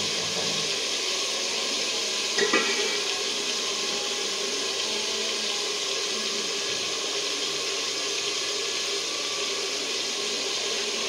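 Curry base sizzling and bubbling steadily in a cooking pot after water and chillies have gone in, with one short knock, like a spoon on the pot, about two and a half seconds in.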